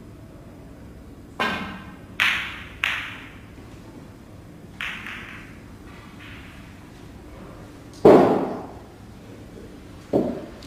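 Snooker balls on the table: a tap of the cue on the cue ball about a second and a half in, then hard clicks of balls striking each other, and later duller knocks, the loudest about eight seconds in.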